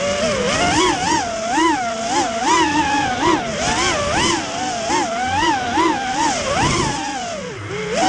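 FPV racing quadcopter's brushless motors whining, the pitch rising and falling about once a second as the throttle is worked. The pitch drops low near the end, then climbs again.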